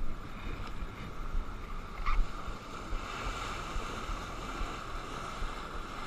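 Water rushing along a sailboat's hull under way, with wind buffeting the microphone and a sharp knock about two seconds in.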